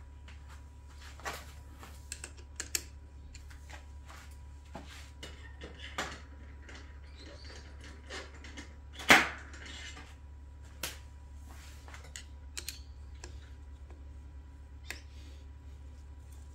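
Scattered light metallic clicks and taps of a hex key and metal bar-end mirror parts being handled and fitted, with one louder knock about nine seconds in, over a steady low hum.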